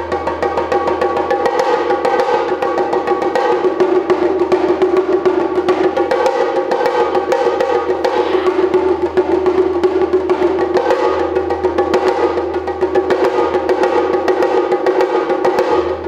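Music with rapid, dense percussion taps over sustained held tones.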